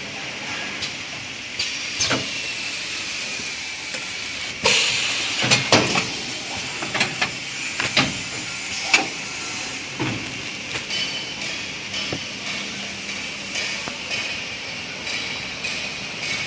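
A kitchen towel roll bundle packing machine running, with a steady hiss and hum. Over it come repeated sharp clacks and knocks from its air cylinders and moving parts, busiest in the middle.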